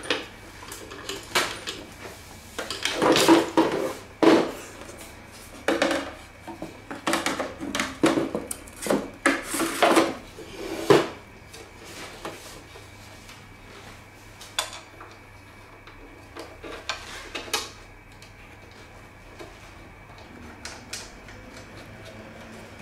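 Knocking and clattering of a mini kotatsu's barred frame and heater unit being handled and fitted back together: a dense run of knocks over the first half, then only a few light clicks.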